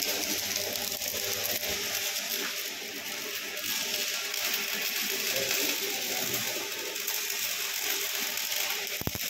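Electric arc welding on a thresher's steel housing: the arc gives a steady crackling hiss. A few sharp clicks sound near the end.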